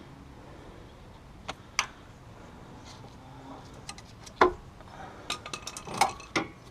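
Scattered clicks and metallic clinks of hand tools and small parts being handled while the brake sensor harness and its clips are worked free from the wheel hub. A few light clicks come first, a sharper knock follows about four seconds in, and a quick run of clicks comes near the end.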